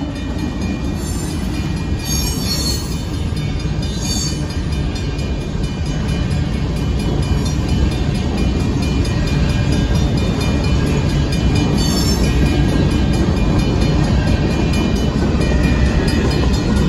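Union Pacific grain train of covered hopper cars rolling through a grade crossing: a steady heavy rumble of steel wheels on rail that grows slowly louder. Brief high-pitched sounds cut through a couple of seconds in, around four seconds in, and again about twelve seconds in.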